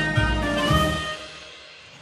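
Background music with bass notes and sustained melody tones that fades out about a second in.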